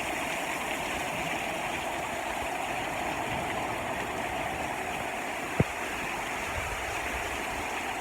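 Rain falling steadily, an even rushing noise, with a single sharp click a little over halfway through.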